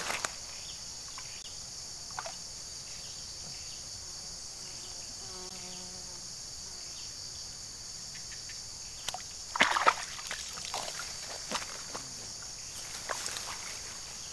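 A steady high-pitched insect chorus, with a short burst of splashing and knocks about ten seconds in as a pole pushes a fish net down into the canal water, then a few smaller sloshes.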